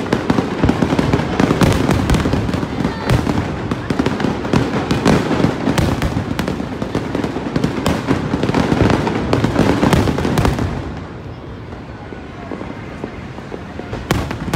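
Aerial firework shells bursting in rapid, overlapping succession with crackle, dense for about ten seconds, then thinning and quieter, with one more loud burst near the end.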